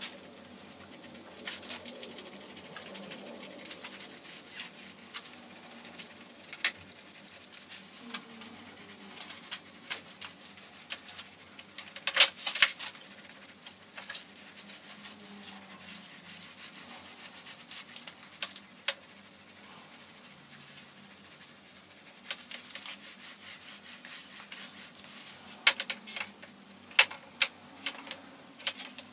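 Soft rubbing of a glue roller spreading wood glue over hardwood strips, with scattered sharp clicks and knocks of wooden strips being handled and set down, a pair about twelve seconds in and a cluster near the end.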